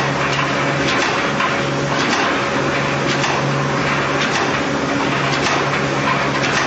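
Automatic push-cap assembly machine running: a steady hum with frequent clicks.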